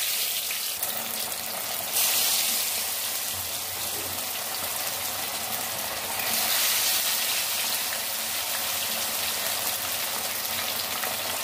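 Batter-coated fish pieces frying in hot cooking oil in a pan, a steady dense sizzle. The sizzle swells louder about two seconds in and again about six seconds in, as more pieces are laid into the oil.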